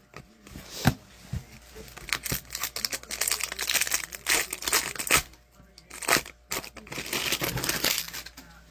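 A sports card pack wrapper being torn open and crinkled, with a few sharp clicks and then two stretches of rustling, the longer one in the middle and a shorter one near the end.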